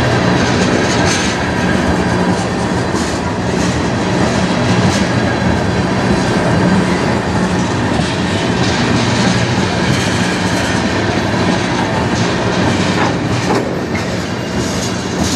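Freight train tank cars rolling past: steady rumble of steel wheels on rail, with repeated clicks and clatter as the wheels pass over the rail joints.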